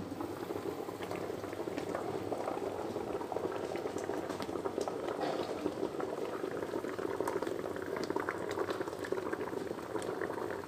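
Water boiling hard in a large aluminium steamer pot with its lid off, a steady bubbling with many small pops, as chicken finishes steaming over it.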